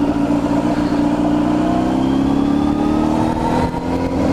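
A 1997 Yamaha YZF600R's inline-four engine running through a short aftermarket exhaust while riding, its pitch climbing slowly as the bike accelerates, with a brief dip near the end. Wind noise on the microphone runs underneath.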